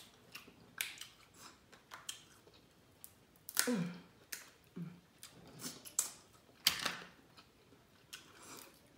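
Crab-leg shells being cracked and snapped apart by hand, a sharp crack about once a second with the loudest about halfway through, mixed with chewing and mouth sounds.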